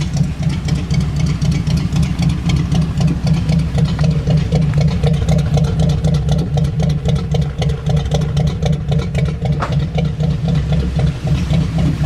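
Old Ford van's engine running steadily: an even, low engine note with a regular light ticking above it.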